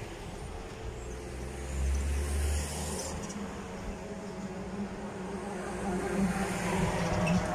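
Engine noise of a passing vehicle: a low rumble about two seconds in, then a steady hum that grows louder toward the end.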